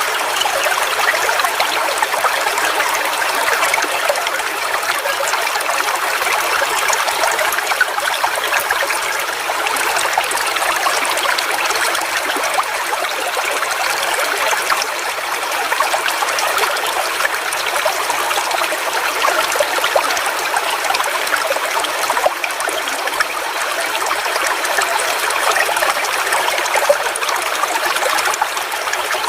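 Forest waterfall: water falling and splashing in a steady rush, a bright hiss full of fine splashes with little low rumble.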